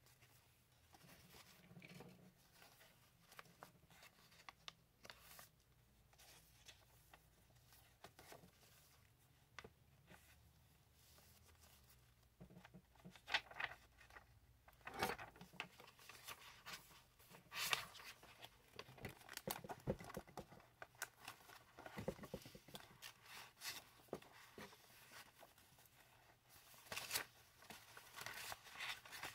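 Paper pages of a handmade junk journal being handled and turned: soft rustling, crinkling and light taps, sparse at first and busier and louder from about halfway.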